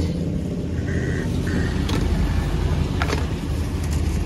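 Motor vehicle engine running nearby, a steady low rumble, with two short high tones about a second in.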